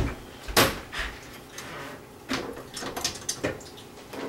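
One sharp knock about half a second in, then a run of lighter clicks and clatters: utensils and fittings being handled at a kitchen counter.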